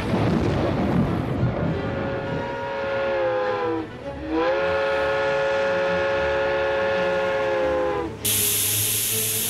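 Steam locomotive whistle blowing twice, a short blast and then a longer one of about four seconds, each chord of tones sagging in pitch as it dies away, followed by a loud hiss of released steam. A rush of noise comes before the whistle.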